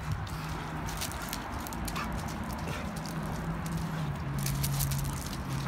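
Dogs scuffling together on a wood-chip floor: scattered clicks and scrapes of paws, over a steady low hum that drops a little in pitch about four seconds in.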